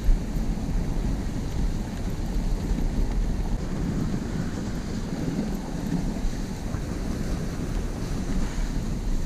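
Steady wind rumble on the microphone of a camera riding on a moving dog sled as it runs over snow.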